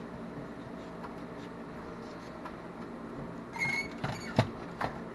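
Plastic console parts being handled: a short clatter of clicks about three and a half seconds in, then two sharp clicks near the end, over a low steady room hum.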